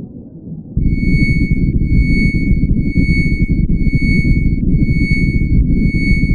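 A high, steady electronic tone with overtones, with brief breaks about once a second, sits over a loud, muffled crowd hubbub with all the highs cut away, as hearing loss would leave it. Both jump up about a second in and cut off suddenly at the end.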